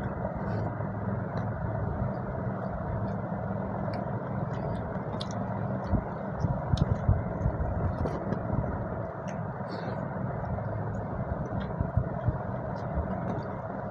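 People eating with their hands: chewing and lip smacks, with fingers mixing rice and fish curry on plastic plates, heard as small clicks and smacks, a few sharper ones about six to seven seconds in and near twelve seconds. Under it runs a steady low hum.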